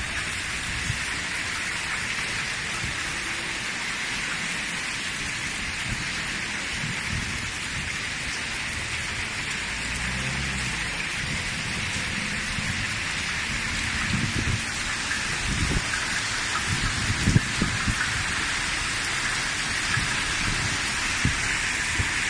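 Hailstorm: hail and heavy rain pelting down in a dense, steady hiss, with scattered low thumps.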